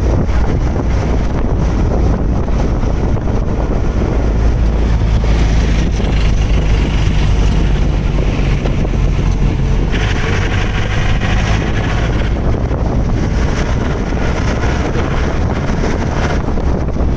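Car engine and tyre noise from inside the moving vehicle: a steady low drone, with wind buffeting the microphone.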